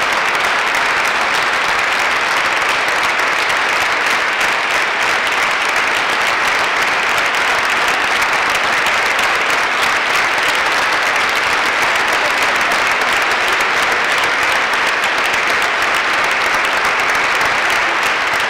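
A large audience applauding, dense and steady.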